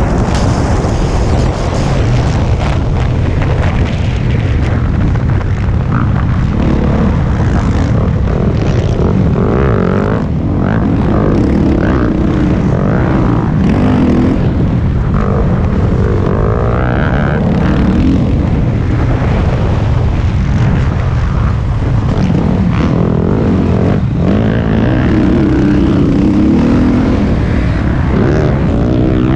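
Dirt bike engine revving up and down repeatedly as it is ridden hard, heard from the rider's own helmet camera with heavy wind noise on the microphone.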